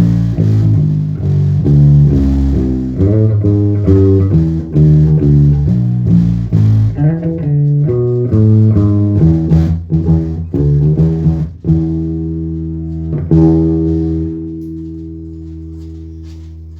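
Five-string Warwick Corvette SS electric bass, fitted with a custom 2-band EQ preamp, played through an amp: a quick run of plucked notes, then a note struck near the end and left to ring and fade out.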